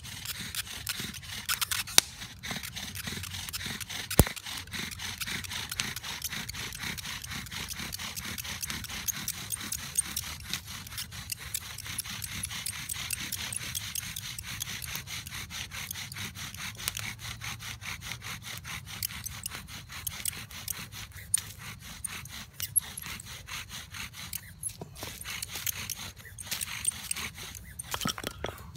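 Bow drill being worked: a wooden spindle driven back and forth by the bow, grinding against the fireboard in a continuous rasping friction that stops near the end. The friction is hot enough to make smoke.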